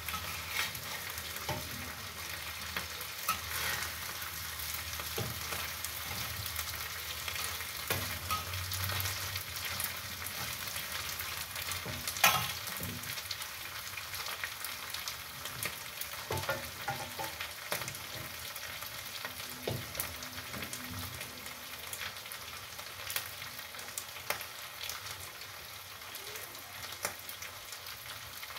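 Omena (small dried lake fish) and onions sizzling in oil in a frying pan on a gas stove, with a metal spatula scraping and tapping the pan as they are turned. One louder clack comes about twelve seconds in.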